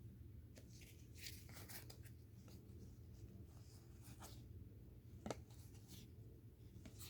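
Faint swishes and light flicks of trading cards being slid and handled, with a small sharp tick about five seconds in, over a low room hum.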